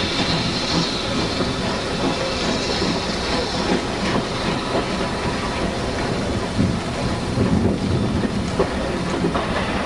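Steam locomotive working hard as it pulls away, its exhaust beating over a steady hiss of steam.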